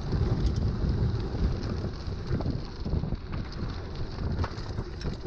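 Wind buffeting the microphone over the rumble of a mountain bike's tyres rolling on rough, cracked pavement, with scattered small rattles and clicks from the bike.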